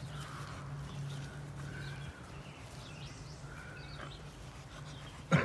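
Outdoor ambience: faint, scattered bird chirps over a steady low hum, with a short loud sound near the end.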